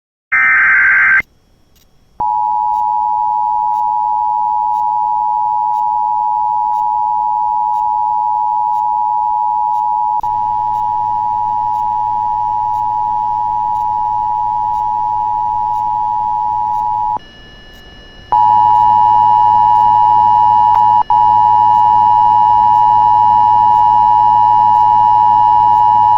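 Emergency Alert System broadcast: a one-second warbling SAME data burst, then the EAS two-tone attention signal (two steady tones near 853 and 960 Hz sounding together) for about fifteen seconds. After a one-second break the attention tone sounds again for about eight seconds, over a low hum.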